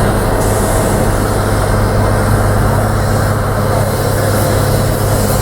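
Train running close by: a steady low hum over continuous rumbling noise, with no breaks.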